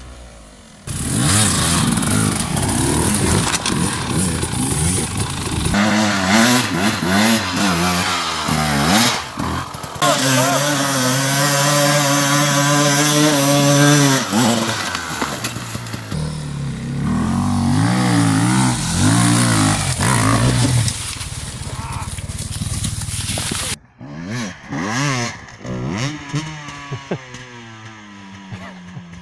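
Enduro dirt bike engines revving in bursts, the pitch rising and falling as the throttle is worked. About ten seconds in, one engine holds a steady high rev for some four seconds. The engine sound drops away sharply a little before the end.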